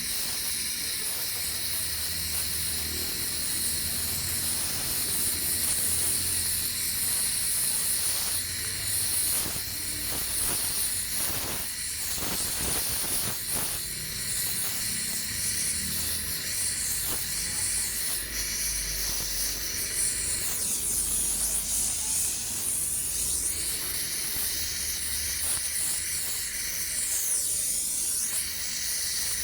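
Welding on aluminium: a steady hiss with a faint low hum underneath.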